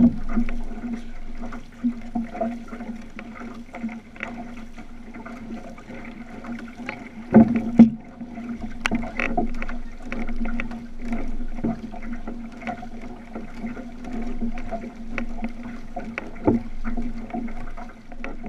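Outrigger canoe under way: paddles dipping and pulling in a rhythm of about one stroke a second, with water washing along the hull. A few sharp knocks come through the hull, the loudest pair about halfway.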